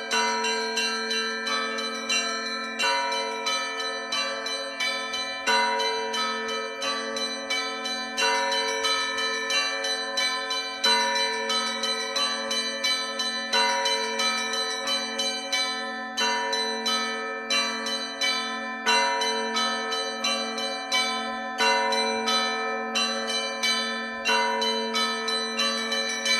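Russian Orthodox church bells ringing a festive peal: a deep bell is struck about every two and a half seconds over its steady hum, and smaller bells chime rapidly in between.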